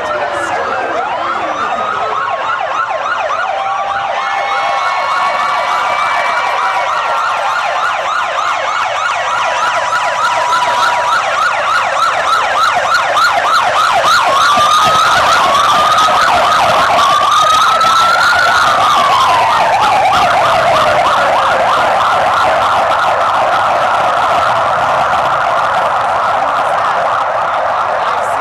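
Siren sounding throughout in a fast, rapidly repeating yelp, with slower wailing glides rising and falling over it. It is loudest around the middle.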